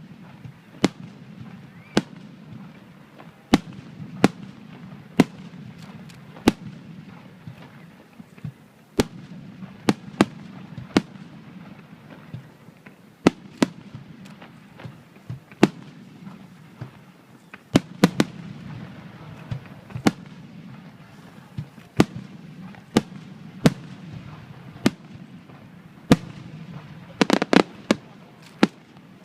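Fireworks shells bursting in a steady series, a sharp bang about every second, with a quick run of rapid crackling reports near the end.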